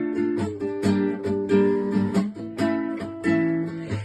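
Acoustic guitar strumming chords in a steady rhythm: an instrumental passage of a song with no singing.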